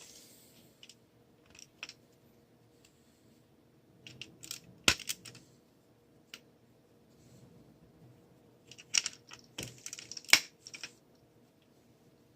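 Small plastic Lego pieces being handled, clicking and rattling in short clusters, with a sharp click about five seconds in and a busier patch of clicks about nine to eleven seconds in.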